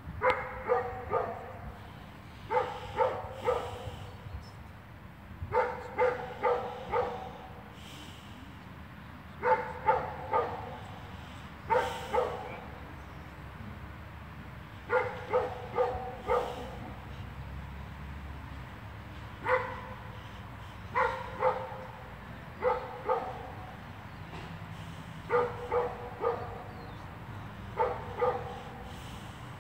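A dog barking in short runs of one to four barks, a run every two to four seconds.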